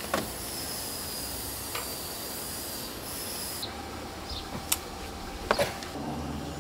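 A few sharp metallic clicks and taps from hand tools working a small metal fitting on a wooden boat's rail, over a steady background hiss; the loudest taps come near the end.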